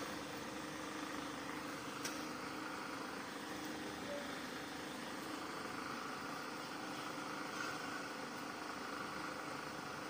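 Faint steady background noise, an even hiss with a low hum, and a small click about two seconds in.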